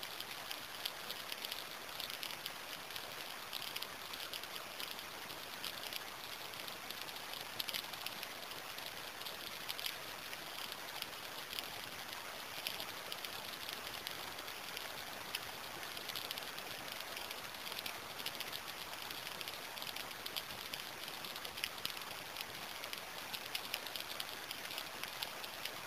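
Steady rain falling, a continuous hiss of many small drop impacts at an even level, with no thunder.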